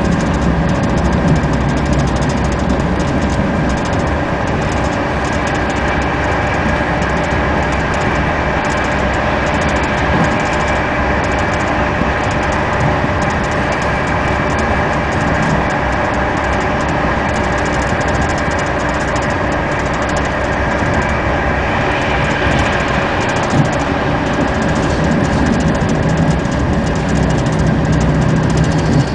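Inside a moving passenger train carriage: the steady running noise of the train on the rails, an even rumble and rattle with a few steady whining tones over it.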